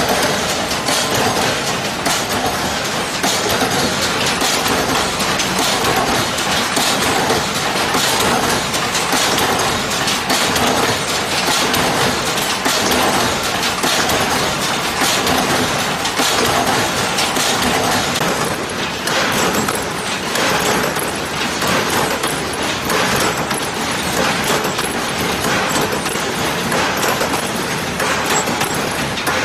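Hinge joint field fence weaving machinery running: a loud, continuous mechanical clatter with rapid metallic clinking of wire.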